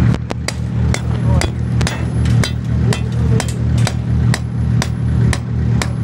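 Sledgehammer driving a metal spike into the ground, sharp strikes landing about twice a second, with an engine idling steadily underneath.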